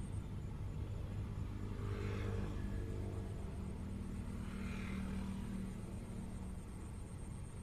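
Low, steady hum of a motor vehicle's engine, with two brief swells of noise about two and five seconds in.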